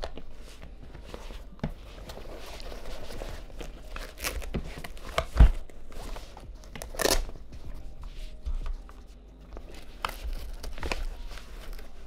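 Hands wrapping two camera lenses in a padded foam-and-cloth camera wrap: the fabric rustles and scrapes, with scattered small clicks. There is a dull knock against the table about five seconds in, and a brief, louder scratchy burst a couple of seconds later.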